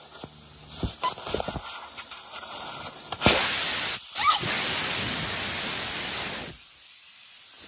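Compressed air hissing out of a semi truck tire's valve stem as the valve core is pulled with a valve core remover tool, the tire at about 120 psi. A few light clicks of the tool come first. About three seconds in a loud steady hiss starts, breaks briefly a second later, runs on, and then drops away near the end.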